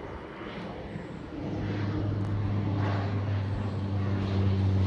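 Single-engine floatplane passing overhead: a steady propeller and engine drone that comes in about a second and a half in and grows louder as it approaches.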